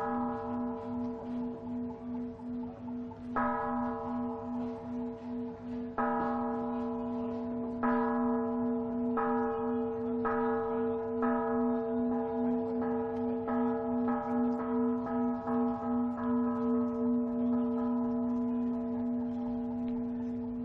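A large bell struck over and over, slowly at first and then faster and faster until the strokes come about twice a second. Each stroke rings on into the next, with a low hum that pulses in a slow wobble.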